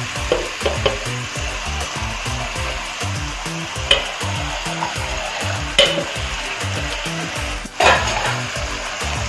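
Masala-coated chicken leg pieces going into a hot pan of onion-tomato masala in coconut oil, sizzling steadily, with a few sharp clatters as pieces land and are shifted in the pan. Soft background music with a low repeating beat runs underneath.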